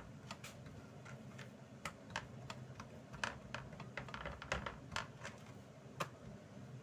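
Fingertips pressing and patting soft dough flat on a plastic tray, giving irregular light taps and clicks, a few a second, where fingers and nails strike the plastic.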